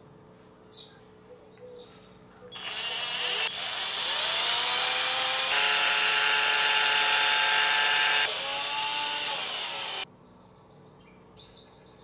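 Electric drill running for about seven seconds with strands of thin copper wire held in its chuck, twisting them together. It speeds up in steps, runs at its highest speed in the middle, then winds down and stops. Faint clicks of handling come before and after.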